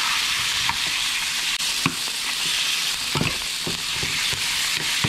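Diced raw chicken sizzling steadily in hot oil in a nonstick frying pan, with a metal spoon clicking and scraping against the pan a handful of times as it is stirred.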